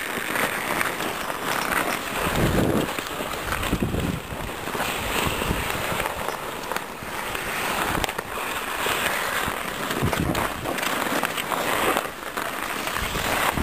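Hockey skate blades scraping and gliding on outdoor rink ice, with wind rushing over the microphone as the camera moves with a skater; a few sharp knocks stand out in the second half.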